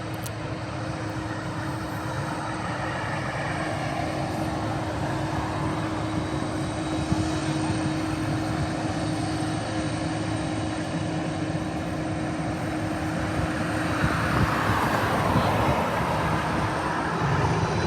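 Large jet airliner's engines running steadily, a constant hum under a wide rushing noise, growing slightly louder near the end.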